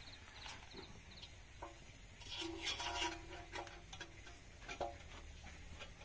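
Faint rooster crowing several times in the background, with a few light clicks.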